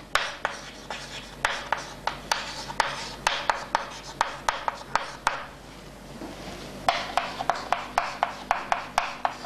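Chalk writing on a chalkboard: a quick string of taps and scratchy strokes as letters are written. The strokes pause for about a second and a half a little past halfway, then resume.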